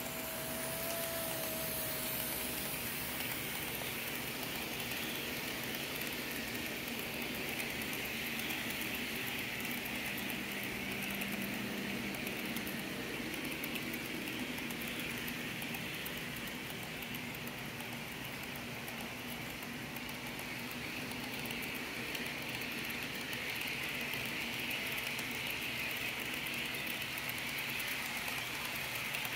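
HO scale model freight train rolling past on its track: a steady whir of small wheels on the rails and the locomotive's motor, fairly even throughout.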